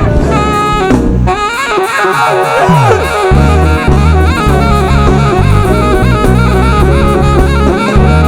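Band music with horns over a drum kit and bass. The bass and drums drop out for about two seconds, a falling sweep runs through the gap, and then the beat comes back in.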